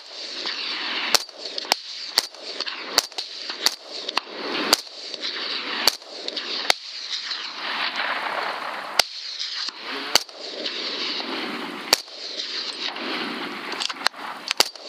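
Rifle shots from a hog hunt, fired rapidly and irregularly, roughly one or two a second and about seventeen in all, over a continuous rushing noise.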